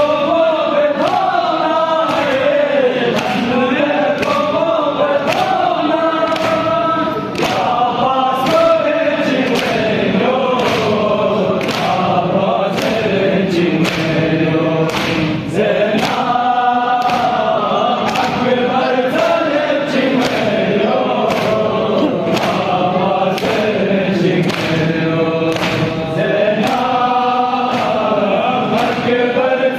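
A group of men chanting a noha together, with a steady beat of sharp slaps from hands striking chests in matam.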